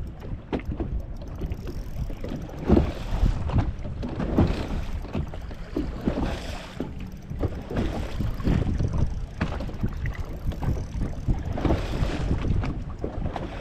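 Wind buffeting the microphone on a small boat on open water: an uneven low rumble with irregular knocks and swells.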